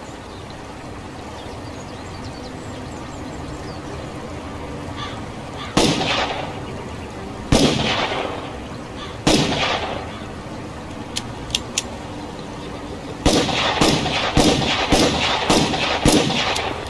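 Revolver gunshot sound effect: three single shots about a second and a half apart, each with a ringing tail, then three quick light clicks, then a rapid string of about eight shots.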